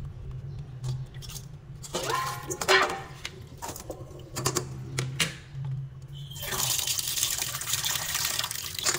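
Tap water pouring in a steady stream into a steel pot of small anchovies being rinsed, starting a little after six seconds in. Before that come a few knocks and splashes as the fish are handled in the pot, the loudest nearly three seconds in.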